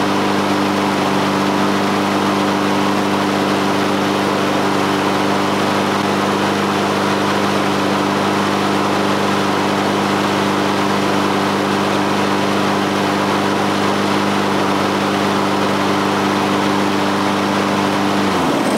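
Honda HRN216 walk-behind lawn mower's single-cylinder Honda GCV170 engine running steadily at about 3,000 rpm. It is shut off near the end, its pitch falling as it winds down.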